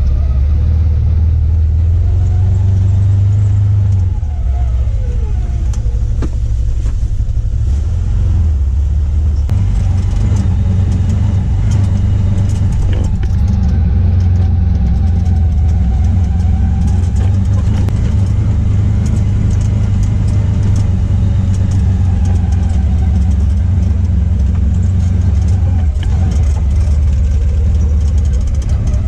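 Off-road vehicle's engine running steadily as it drives slowly along a rough, muddy dirt trail, heard from inside the cab, with clicks and rattles from the bumpy ground.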